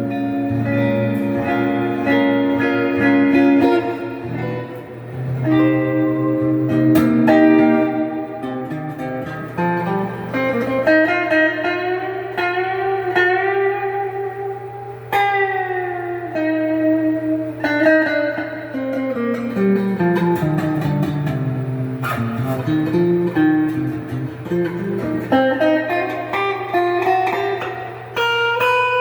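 Donner DST-200 electric guitar with its stock pickups played through an amplifier: held chords first, then single-note lead lines with notes bent and slid up and down.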